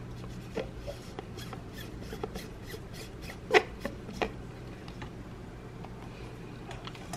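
Handling noise from a Bitspower upgrade kit's clear reservoir cylinder being fitted onto its pump-top base: faint rubbing and small plastic taps, with a sharper click about three and a half seconds in and another soon after. A low steady hum runs underneath.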